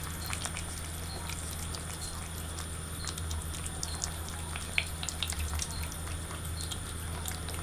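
Two cats eating wet cat food: irregular small wet smacking and chewing clicks, one sharper click near the middle, over a steady low hum.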